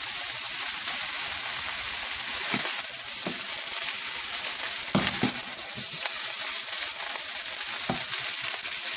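Fried rice sizzling steadily in oil in a hot pan, with a handful of scattered knocks and scrapes as it is stirred.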